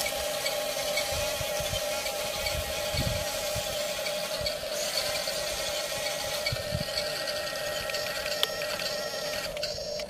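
Huina radio-controlled toy bulldozer crawling through sand, its small electric drive motors and gearboxes giving a steady whine over a rattle of the tracks. The whine cuts out just before the end.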